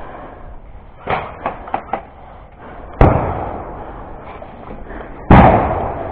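A few light knocks about a second in, then two loud bangs a little over two seconds apart, each ringing out for about a second.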